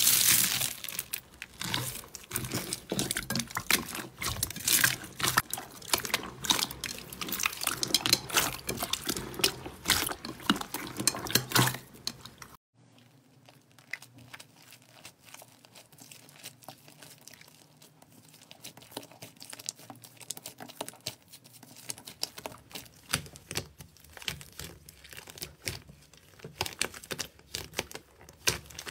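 Hand pressing into foam-bead slime, with dense crisp crackling for about twelve seconds. After a sudden drop, quieter squishing and sticky clicking as soft slime is pressed and stretched.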